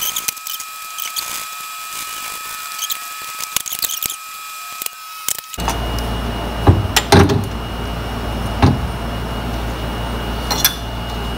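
Small metallic clicks and rattles of a hand tool turning the bolts of an aluminium motor cradle on a steel workbench. About halfway through, the sound changes to a steady low hum with a few sharp metal knocks as parts are handled on the pedicab frame.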